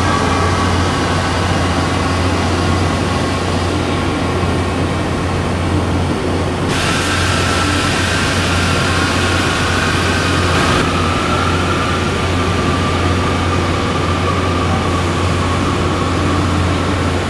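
Explosion-proof operator scissor lift's drive unit running steadily with a low hum and a faint whine as the platform raises. A hiss joins it about seven seconds in and eases about four seconds later.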